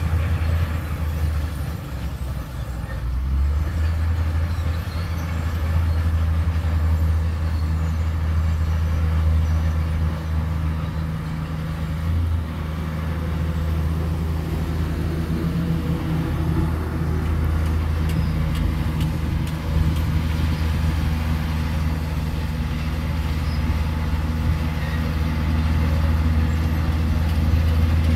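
Diesel engine of heavy earthmoving machinery running steadily, a deep drone that swells and eases slightly.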